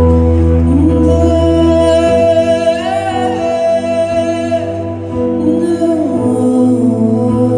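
Male vocalist singing a slow ballad line into a microphone, accompanying himself on a Yamaha electronic keyboard with sustained chords; the low bass note changes about two seconds in and again near six seconds.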